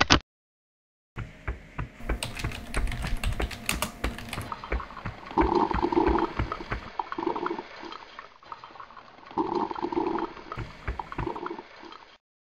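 Coffee machine sound effect: dense clicking and rattling of a machine dispensing drink, with two louder pouring spells about five and nine seconds in, cutting off suddenly near the end.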